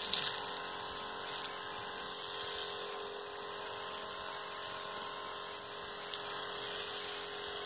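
Steady hum of a small motor, holding one even pitch with a light hiss over it.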